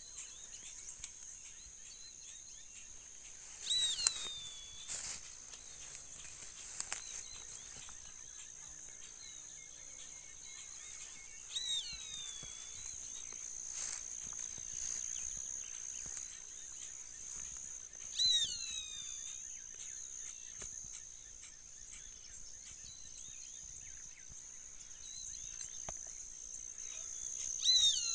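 A steady high insect buzz runs throughout. Over it a bird calls four times, each call a quick run of falling notes, and there are a few short knocks and rustles.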